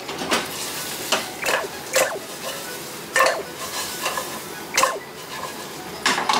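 A kitchen utensil stirring in a pot on the stove, knocking and scraping against it about seven times at irregular intervals, over a light sizzle.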